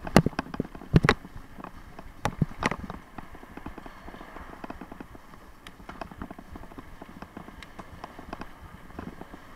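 Bicycle rattling and clunking as it rolls over bumps in the pavement: a few sharp knocks in the first three seconds, then a lighter, irregular rattle.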